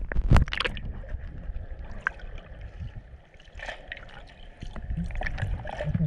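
Muffled underwater sound picked up through a GoPro's waterproof housing: water sloshing and gurgling against the camera, with a few sharp knocks right at the start and a quieter stretch in the middle.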